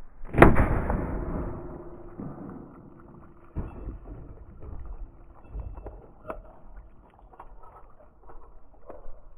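A single 9mm pistol shot about half a second in, from a Smith & Wesson M&P Shield 2.0, ringing out for a second or so. A weaker thump follows a few seconds later, then a scatter of faint knocks.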